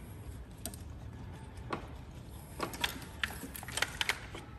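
Plastic wiring clips and connectors clicking and rattling as a wiring harness is pulled free from its clips on the side of the engine: a handful of short, sharp clicks, coming closer together about three to four seconds in.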